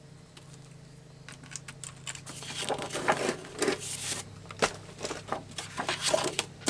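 Paper being handled and shifted into place: irregular rustling, crinkling and light taps that start about a second in and grow busier, over a steady low hum.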